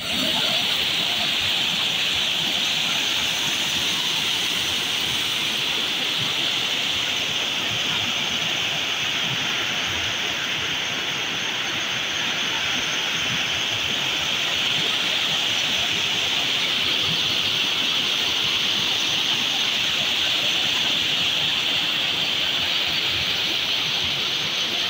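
Fast mountain stream cascading over rocks: a steady, even rush of water.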